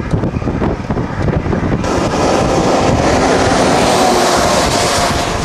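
Wind buffeting the microphone, then from about two seconds in a vehicle passes close by on the highway, its tyre and engine noise swelling and loudest near the end.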